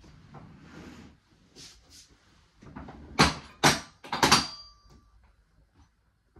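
Click-clack sofa bed's metal hinge mechanism and frame clacking loudly several times in quick succession as the backrest is worked, the last clack with a brief metallic ring. Light fabric rustling comes before it.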